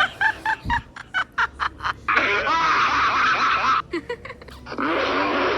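Cartoon character laugh sound effect: a quick run of short, clipped laughs, then a longer, denser stretch of laughter. The pattern starts again near the end.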